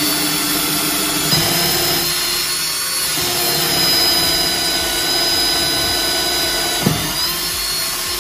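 Power drill running steadily as it bores a hole through the boat's fiberglass hull below the waterline; its motor whine shifts in pitch a few times and glides briefly near the end.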